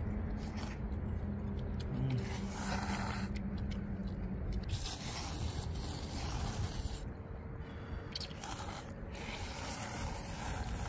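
People slurping spicy seafood ramen noodles from bowls, in short noisy bursts a few times, over a steady low rumble.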